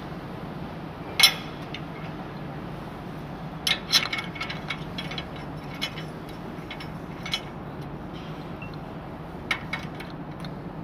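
Metal clinks and clanks of a jockey wheel's steel clamp bracket and screws being handled and tightened by hand. A sharp clank about a second in, a quick flurry of clinks around four seconds in, and a few single clinks later, all over a steady low hum.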